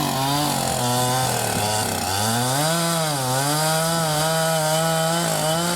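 Two-stroke chainsaw running at speed and cutting into a tree trunk. Its engine pitch sags and recovers as the bar loads up in the wood, with clear dips about two seconds in and again a little after three seconds.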